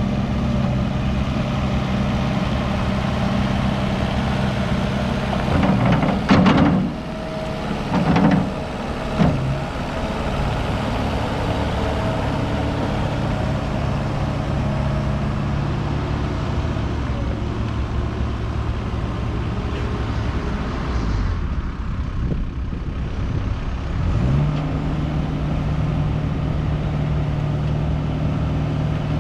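JCB 1CX compact backhoe loader's diesel engine running steadily, with a few brief louder surges about six to nine seconds in. After a short dip a little past twenty seconds it settles back into a steady run at a slightly higher pitch.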